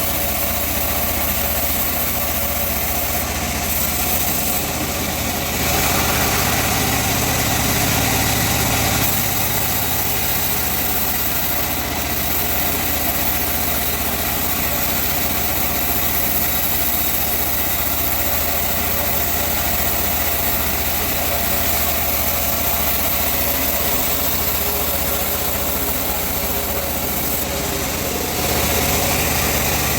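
Engine-driven sawmill running steadily, a little louder for a few seconds about six seconds in and again near the end.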